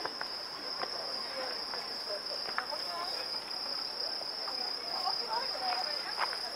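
Crickets trilling in a steady, unbroken high chorus of night insects, with the faint murmur of distant voices from a crowd underneath.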